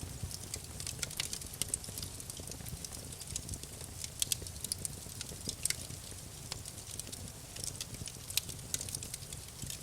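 Wood campfire crackling: irregular sharp pops and snaps over a low steady rumble of burning.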